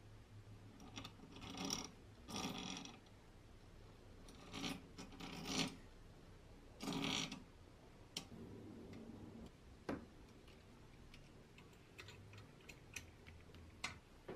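Hand work on a vintage table fan's parts: several short rasping bursts about half a second each, then a scatter of sharp clicks and ticks as small mechanical parts are handled.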